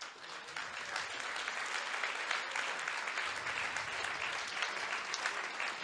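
Audience applauding, swelling up within the first second and holding steady.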